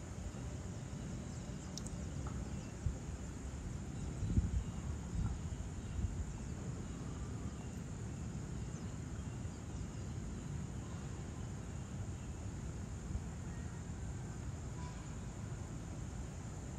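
Outdoor ambience: a steady high-pitched chirring of insects over a low rumble, which swells about four to six seconds in.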